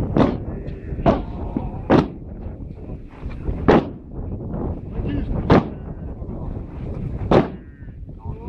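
Massed feet of a Mokhukhu dance line stamping on hard dirt ground in unison: six heavy thuds, unevenly spaced about one to two seconds apart.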